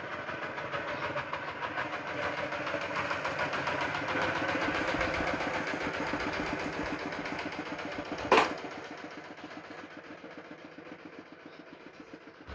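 A nearby engine running with a fast even beat, swelling and then fading away. A sharp click sounds about eight seconds in.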